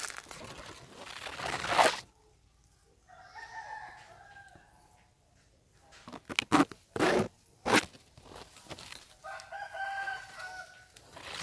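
A rooster crows twice, about three seconds in and again near the end, each crow about a second and a half long. Louder close rustling at the start and a few sharp knocks in the middle.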